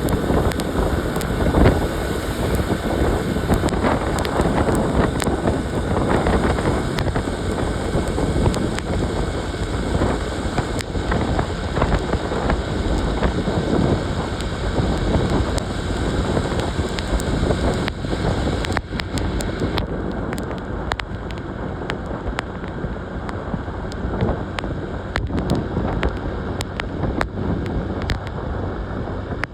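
Wind buffeting a phone's microphone over the steady running of a motorcycle engine and road noise while riding.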